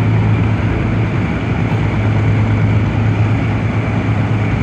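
Amphibious excavator's diesel engine running steadily, a loud, even low hum that holds without change.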